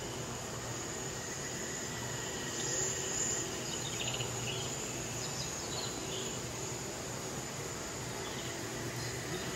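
Steady background hum and hiss of a tropical greenhouse interior, with a few faint high chirps about three to six seconds in.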